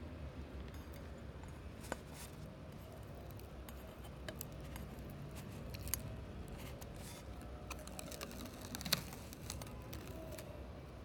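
Black rubber paint coating being picked and peeled by hand off a steel spoon: scattered small clicks and scratches of fingernail on the coating and metal, the sharpest about nine seconds in.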